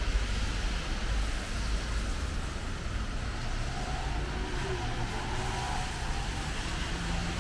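City road traffic on rain-wet streets: a steady rush of tyres and engines with a low rumble underneath. A faint hum joins about halfway through.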